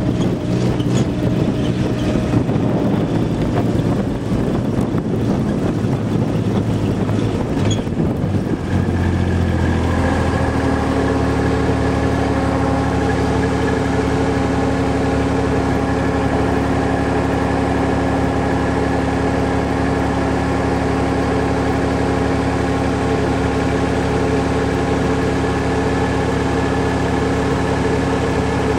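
A vehicle's engine running as it drives over rough grass, uneven for about the first ten seconds. It then settles into a steady idle hum.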